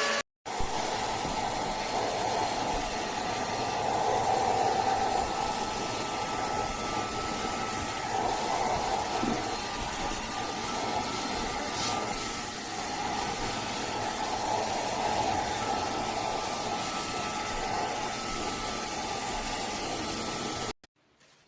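Keromee handheld cordless vacuum cleaner running steadily: an even motor whir with airflow hiss that starts just after a brief gap and cuts off suddenly near the end.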